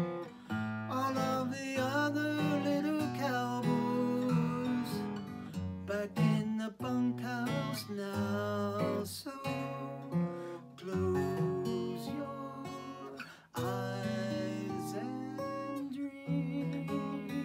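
Steel-string acoustic guitar played solo: a mix of strummed chords and picked notes.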